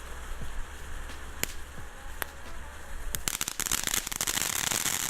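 Weco silver ground fountain catching: a few single sharp cracks, then about three seconds in it ignites and sprays with a loud hiss full of dense crackling that continues.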